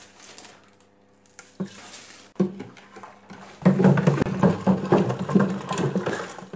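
Vinegar brine and pickle ingredients in a large ribbed glass jar being shaken to dissolve the rock salt. A couple of knocks come first, then from about three and a half seconds in a continuous rapid sloshing and rattling.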